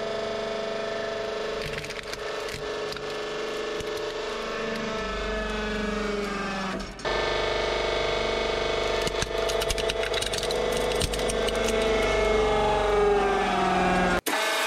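Hydraulic press pump motor humming steadily, its pitch slowly falling, as the ram crushes a plastic flip phone and then a plastic toy tank. The hum dips briefly about halfway, and dense plastic cracking and snapping crowds the second half.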